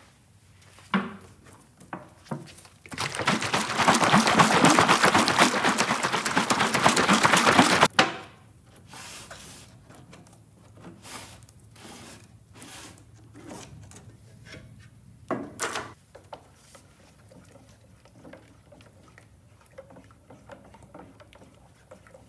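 Epoxy primer being stirred by hand with a stick in a metal paint can: faint scraping and knocks against the can, with one louder knock about two-thirds of the way through. Early on, a loud, even noise lasts about five seconds and cuts off sharply.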